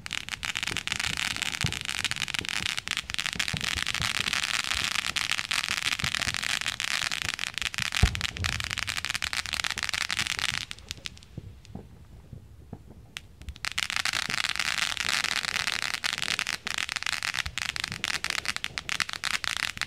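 Ground firework crackling with a dense stream of rapid pops, with one sharper bang about eight seconds in. The crackling drops away for about three seconds, then starts again.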